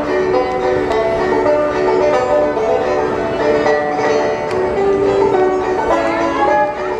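Background music with steady sustained melody notes.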